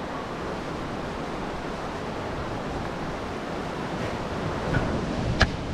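Ocean surf breaking and washing along the shore, a steady rush of noise, with one sharp click about five seconds in.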